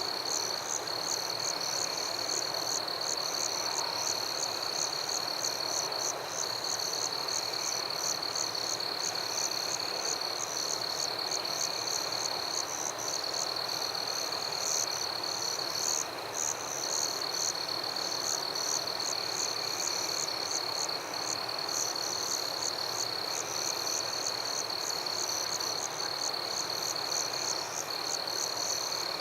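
Night ambience of frogs and insects: a steady, high insect trill runs throughout, with rapid, evenly repeated chirps above it and a dense frog chorus beneath.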